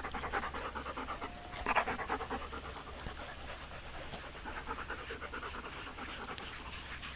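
A dog panting hard close to the microphone, in quick, even breaths that carry on steadily.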